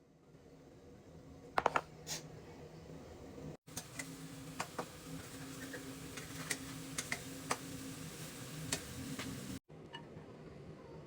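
Food sizzling in a frying pan, with a metal utensil clinking and scraping against the pan in a string of sharp clicks. The sound breaks off abruptly twice.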